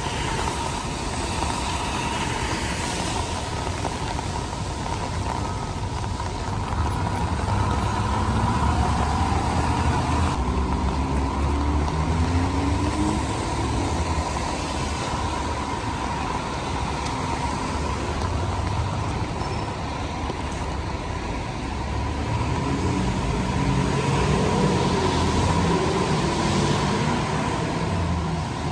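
Downtown street traffic on wet roads: a steady hiss of tyres and rain, with vehicle engines running; twice an engine rises in pitch as a vehicle pulls away.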